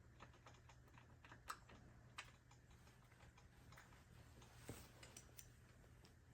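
Faint, irregular small clicks and light ticks from a hex key and bike parts being handled, the loudest about one and a half seconds in and again near the end.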